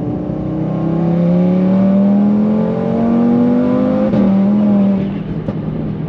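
Audi RS3's turbocharged five-cylinder engine accelerating hard, heard from inside the cabin: the pitch climbs for about four seconds, breaks briefly as it changes gear, then the engine eases off about a second later.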